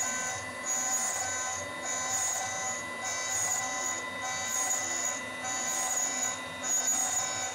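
CNC router spindle running with a steady whine while a small necked-down end mill rough-mills the teeth of a metal gear. A high cutting squeal comes in and drops out about once a second as the tool enters and leaves the cut.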